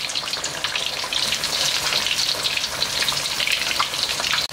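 Masala-coated rohu fish pieces deep-frying in hot oil in an iron kadhai: a steady, dense sizzle and crackle as water cooks out of the fish.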